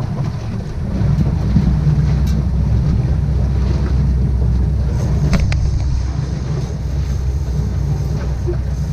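Fishing boat's engine running steadily under way, with wind buffeting the microphone; it grows louder over the first second.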